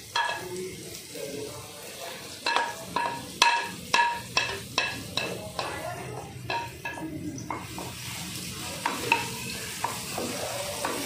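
Wooden spatula tapping and scraping chopped onion off a plate into a wok, a run of sharp ringing taps about two a second between two and six seconds in. Under it, onion and garlic sizzling as they fry in oil, the sizzle louder in the last few seconds.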